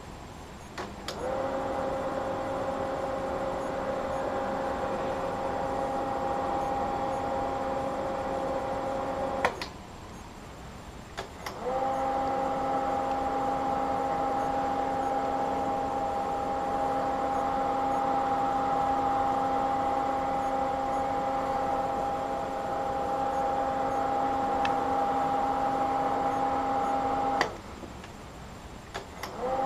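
Old slide projector switched on with a click, its cooling fan running with a steady hum that rises slightly in pitch as it spins up. It is clicked off and back on twice, with a couple of seconds of quiet each time.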